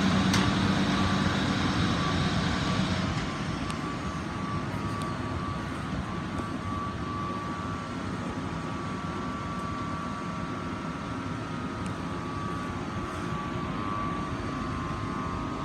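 Diesel multiple units idling at a station platform: a steady low engine rumble with a thin steady whine above it. The rumble drops a little about three seconds in, then holds steady.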